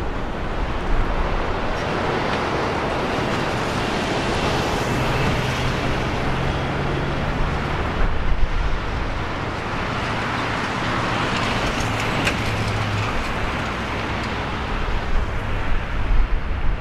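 Boeing 737-800's CFM56-7B turbofan engines running at taxi power as the airliner rolls past, a steady jet noise with a low hum beneath it.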